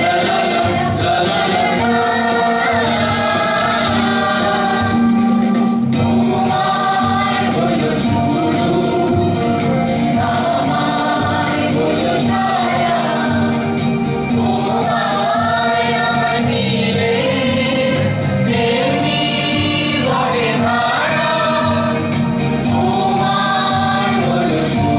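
A song sung with instrumental accompaniment: the voice moves over a steady held low tone, and a regular percussion beat comes in about six seconds in.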